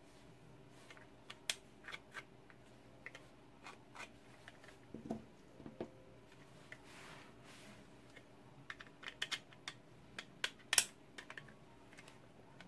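Scattered small clicks and taps of 3D-printed plastic parts being handled and fitted together, with a couple of duller knocks around the middle and the sharpest click about eleven seconds in.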